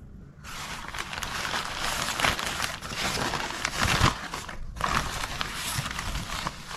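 Paper wrapping of a takeaway food parcel crinkling and rustling as it is unfolded by hand, with a short pause about two-thirds of the way through.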